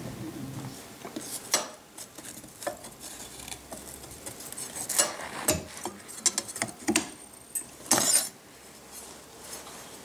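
Thin 3 mm aluminium plate clinking and scraping as it is handled and moved on the milling machine's bed, with irregular sharp metallic knocks, the loudest about five and eight seconds in.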